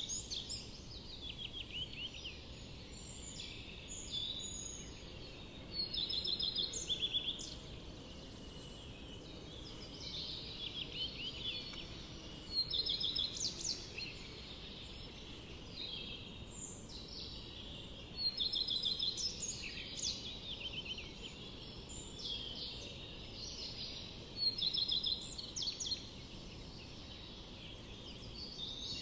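Forest songbirds singing: bursts of high, quick trilled phrases that come louder about every six seconds, with softer calls between, over a steady low background hiss.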